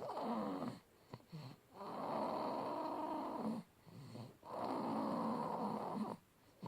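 Baby snoring loudly in her sleep: two long snoring breaths of about a second and a half each, with shorter breaths and pauses between them.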